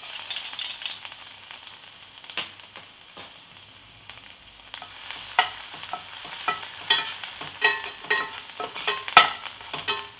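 Ginger-garlic, cumin and mustard seeds sizzling in a little hot oil in a pan, while a spoon stirs, scraping and clicking against the pan. The clicks come more often and louder in the second half.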